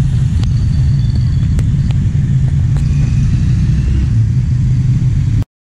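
Loud street traffic: motor vehicle engines running close by, with a steady low rumble, cutting off abruptly near the end.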